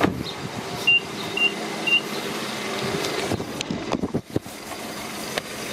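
Infiniti G35's 3.5-litre V6 idling steadily just after an oil change. Three short high beeps about half a second apart come about a second in, with a sharp knock at the start and a few knocks and rustles later.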